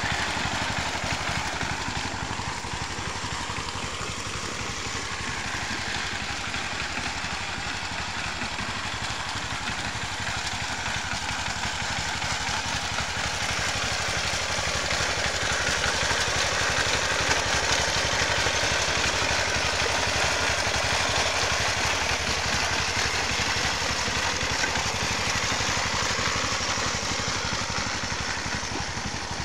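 A tractor's engine running steadily under load while it smooths a plowed, flooded rice paddy, growing slightly louder about halfway through.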